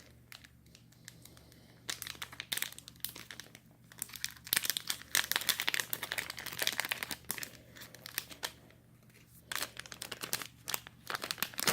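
Plastic booster-pack wrapper being torn open and crinkled by hand, in irregular bursts of crackling: a long stretch in the middle and another near the end.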